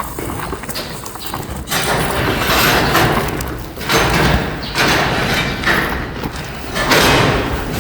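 Hanwoo cow eating rice straw: the straw rustles and crunches in about four bursts as it is taken and chewed, starting about two seconds in.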